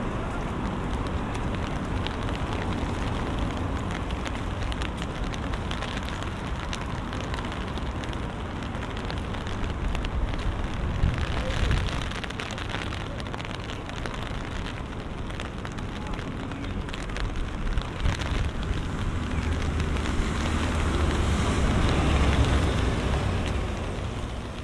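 Rain falling on an umbrella overhead, a dense crackle of countless small drop ticks. A low rumble, such as passing traffic, grows louder near the end.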